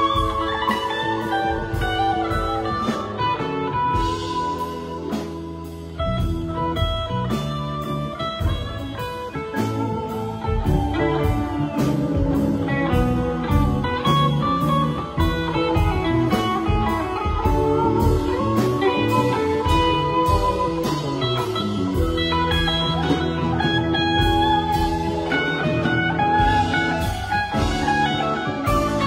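Live band playing an instrumental passage: electric guitar lines over bass, drum kit and keyboard, in a loose jam. The bass and kick drum drop out for about two seconds about four seconds in, then come back in.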